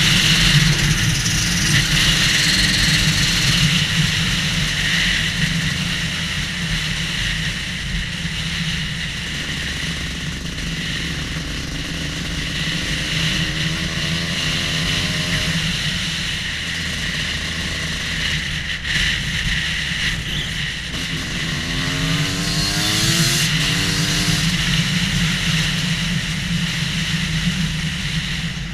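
Two-stroke engine of a Husqvarna WR250 enduro motorcycle running at road speed, rising in pitch twice as it accelerates through the gears.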